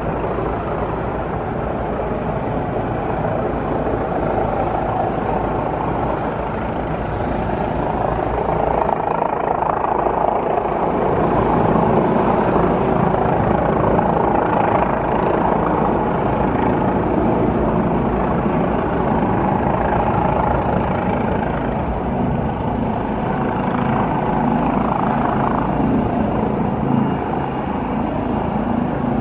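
Helicopter rotor and engine noise, a steady dense whir that grows a little louder about ten seconds in and eases slightly later on.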